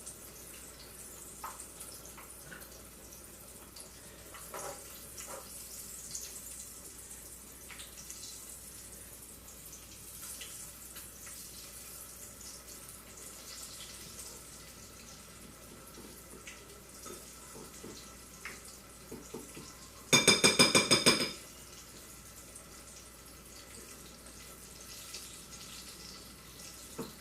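Oil sizzling as pancake-batter-coated Oreos deep-fry: a steady hiss with scattered small pops. About twenty seconds in, a loud pitched tone sounds for about a second.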